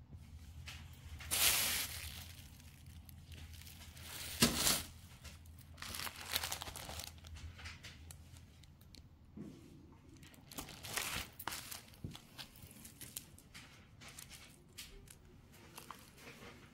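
Packaging being handled and crinkled in several short bursts, the loudest two about a second and a half and four and a half seconds in, with small clicks between.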